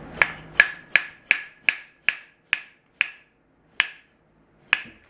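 Metal hand injector for liquid plastisol being worked by hand while it is lubed: about ten sharp metallic clinks, each with a brief ring, about three a second and spacing out toward the end.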